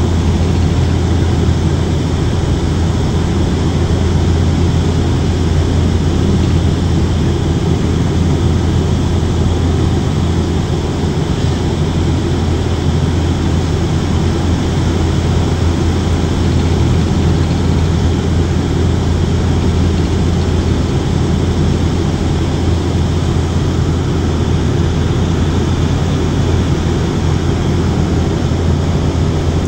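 Turboprop airliner's engines and propellers running steadily, heard inside the passenger cabin as a strong low hum over a constant rush of air.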